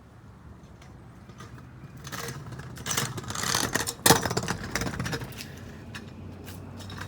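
Scooter wheels rolling on pavement, growing louder and then fading, with one sharp clack about four seconds in.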